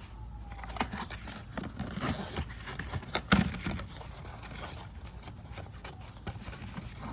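New spin-on oil filter being unpacked and handled: a run of light clicks, taps and rustling, with one sharp knock a little past three seconds in.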